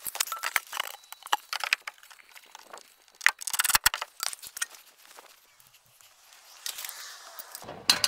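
Scattered light clinks, taps and knocks of hand work as a wooden batten is set against the shed's board siding, with small metal pieces clinking; a dense run of sharp clinks comes about three and a half seconds in.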